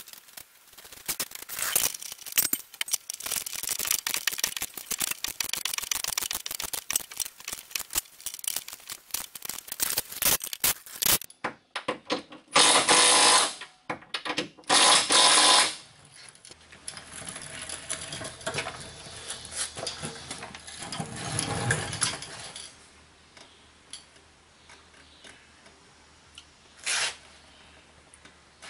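About ten seconds of rapid, irregular clicking, then a cordless impact wrench tightening receiver-hitch bolts to the frame in two loud bursts of about a second each, with a shorter burst near the end.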